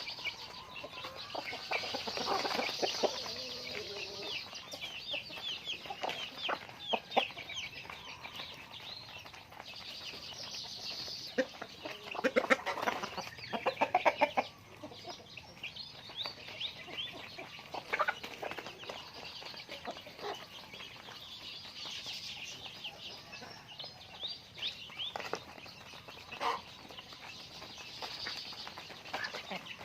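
Chickens clucking and calling, with many short high calls and a loud run of rapid calls around the middle.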